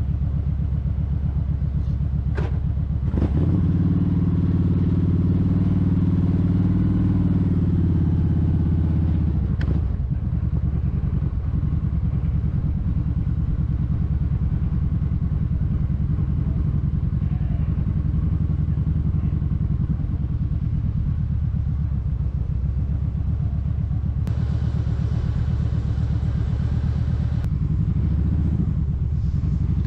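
A Kawasaki Vulcan 1700 Vaquero's V-twin engine running in slow stop-and-go riding. It grows louder as the bike pulls away a few seconds in and stays up for about six seconds, then settles back to a lower steady beat. There are a couple of sharp clicks just before it pulls away.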